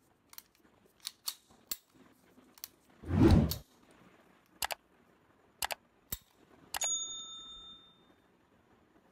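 Light metallic clicks from a Beretta Model 1934 pistol's action being worked by hand. About three seconds in comes a loud whoosh, and near the end of the clicks a click followed by a ringing bell ding that fades out: the sound effects of a subscribe-button animation.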